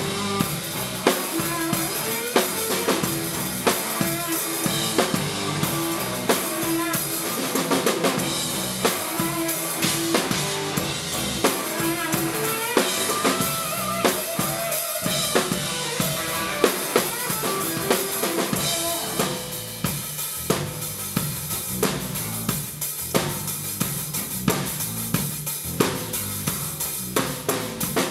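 Rock band playing an instrumental passage with the drum kit up front: steady kick, snare and cymbal strikes over sustained pitched notes from the rest of the band. The band drops a little in level about two-thirds of the way through.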